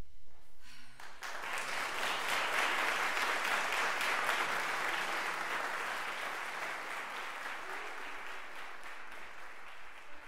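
Audience applauding, starting about a second in and slowly fading.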